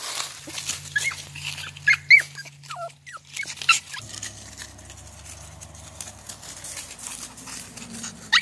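Pomeranian puppy giving a few short, high whimpering yips in the first half, the loudest about two seconds in, with rustling of dry leaves as it moves about.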